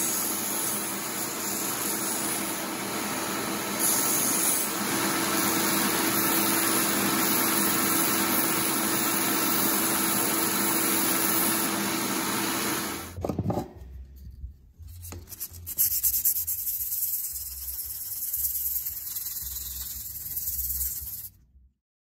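Small benchtop belt sander running while a steel folding-knife part is held against the belt, a steady grinding hiss with a faint hum. About 13 seconds in the sander sound stops suddenly and an uneven, quieter rubbing follows, which cuts off shortly before the end.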